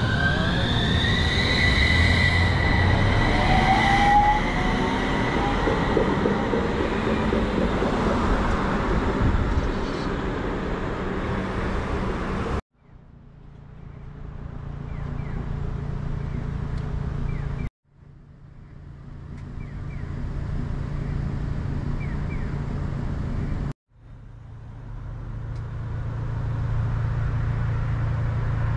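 Utsunomiya Light Line tram pulling away from the platform, its electric drive giving a rising whine in several tones that levels off, over loud running noise. About halfway in the sound cuts off abruptly to a quieter steady low hum, broken by two more sudden cuts.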